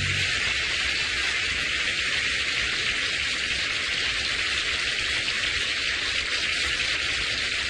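Studio audience applauding steadily after a song, a dense even patter of many hands clapping.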